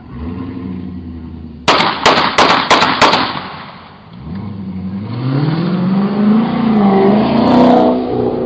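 A quick volley of about six gunshots fired into the air, starting about two seconds in, followed by a car engine revving, its pitch rising and falling.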